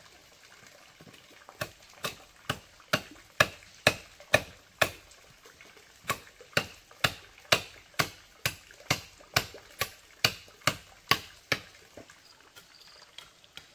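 A hand tool striking again and again, about two sharp blows a second, with a short break about five seconds in; the blows stop a couple of seconds before the end.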